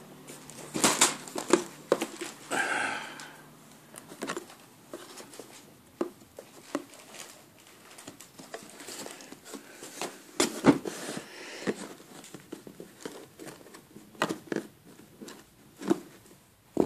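Plastic packaging crinkling and a cardboard model-kit box being handled, with irregular rustling and scattered sharp taps and knocks.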